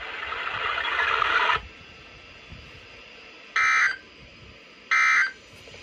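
About a second and a half of radio hiss that cuts off, then the NOAA Weather Radio SAME end-of-message code: three short bursts of digital data tones, about a second and a half apart, marking the end of the weekly alarm test.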